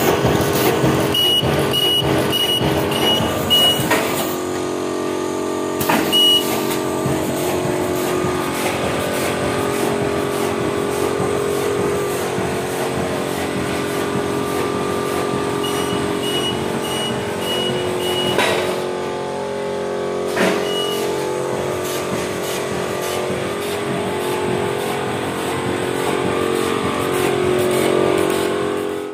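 Servo-driven polythene T-shirt bag sealing and cutting machine running at production speed: a steady machine hum with fast, regular clacking from its sealing and cutting strokes. Twice a run of about five short, high electronic beeps sounds, and single beeps follow each run a couple of seconds later.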